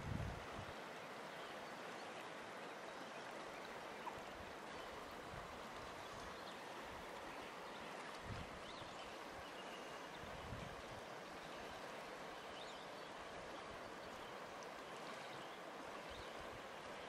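River water flowing, a steady even rush, with a few faint short high chirps and a couple of soft low thumps.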